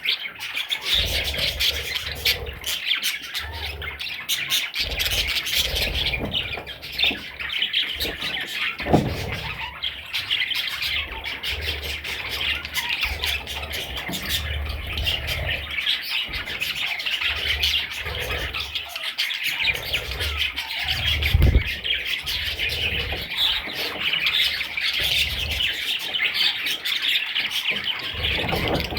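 Budgerigars chirping and chattering continuously, with occasional squawks, and a couple of low thumps along the way.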